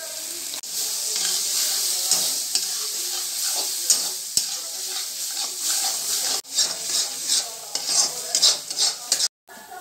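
Crumbled chhena and masala frying in oil in a kadai, sizzling steadily, while a steel spatula stirs and scrapes against the pan. The scraping clicks come thicker near the end.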